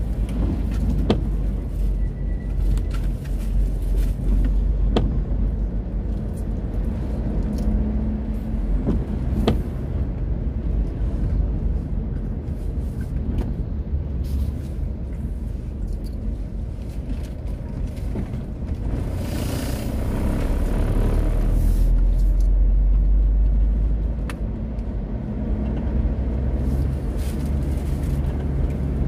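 Car driving along a wet road, heard from inside the cabin: a steady low rumble of engine and tyres on wet tarmac. A brighter hiss swells for a few seconds about two-thirds of the way through, and there are a few light clicks.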